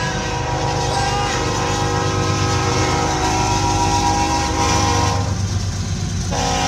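BNSF diesel locomotive's air horn sounding a chord in a long blast of about five seconds. After a short pause, a second blast begins near the end. A steady low rumble of road and engine noise runs underneath.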